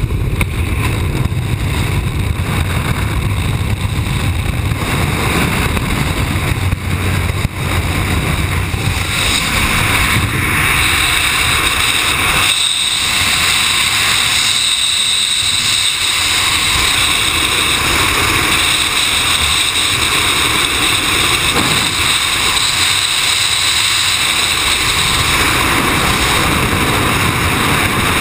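Loud, steady freefall wind rushing over a skydiver's camera microphone. It is heavier and lower just after the exit from the aircraft door, then turns to a more even hiss from about ten seconds in.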